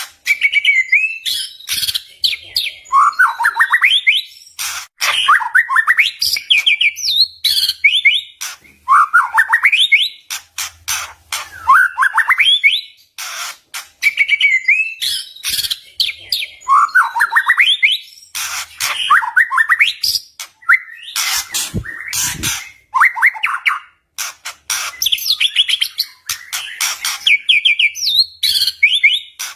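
White-rumped shama (murai batu) singing loudly: quick runs of rising whistled notes repeated every couple of seconds, mixed with sharp, hard clicking and crackling notes.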